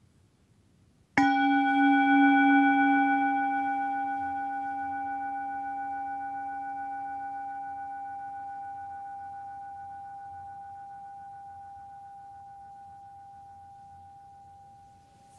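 Metal singing bowl struck once with a wooden striker about a second in, ringing with a few steady overtones that slowly fade; the middle tone lingers longest, almost to the end. The single strike closes a silent meditation.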